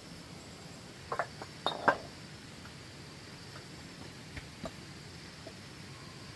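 Flat stones clinking and knocking against each other as flagstones are set into an earth floor. A quick run of sharp clinks comes about a second in, the loudest near two seconds, then two fainter knocks a little later, over a steady low hiss.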